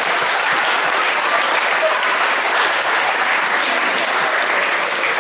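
Comedy club audience applauding steadily after a joke's punchline.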